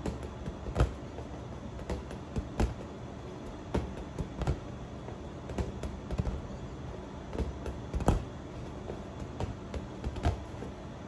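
A small toy football being batted by hand and bouncing on a tile floor: irregular dull knocks a second or two apart, the loudest about eight seconds in.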